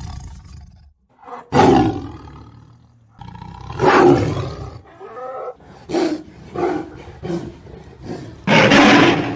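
Tiger roaring and growling in a series of calls. There is one roar about a second and a half in and another about four seconds in, then several short grunting calls in quick succession. A loud roar comes near the end.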